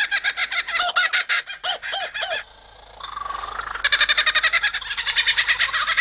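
Laughing kookaburra calls: a loud, fast, rhythmic cackling chatter of repeated notes, with a brief lull about halfway through before it starts up again.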